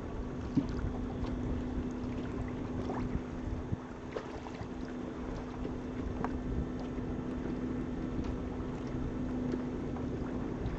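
Boat underway on open water: a steady low hum with a rushing, noisy bed of water and wind on the microphone, and a few faint ticks and splashes.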